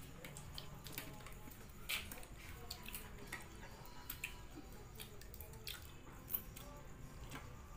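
Children eating rice and fried fish with their hands: scattered soft clicks and smacks of chewing and of fingers picking at food on plates, over a faint low hum.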